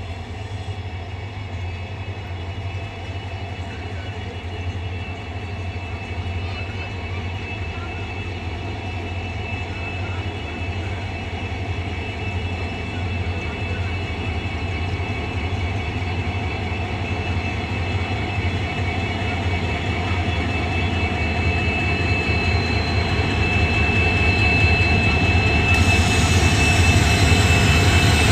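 A pair of WDG4G diesel-electric locomotives running, a steady deep hum with a high whine over it, growing gradually louder. Near the end, more high hiss joins in.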